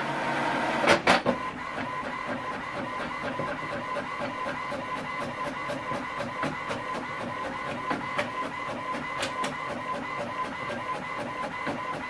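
HP Envy 5030 inkjet printer printing a page: a steady mechanical whir with a faint whine and many repeated clicks, with two louder clacks about a second in, as the page feeds out.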